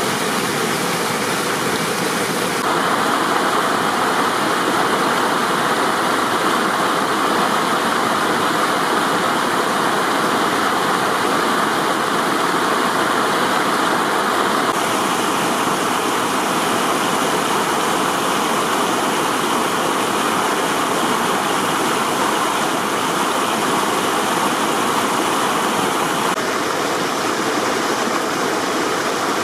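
Spring-fed stream flowing steadily down a hillside over small cascades. It is a continuous rush of water whose tone shifts slightly three times, about 3, 15 and 26 seconds in.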